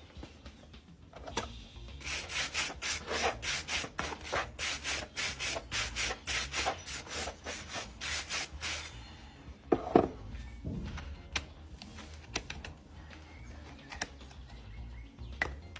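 A farrier's rasp filing down a horse's hoof in quick back-and-forth strokes, about three a second, for several seconds; then a single loud knock and softer scraping.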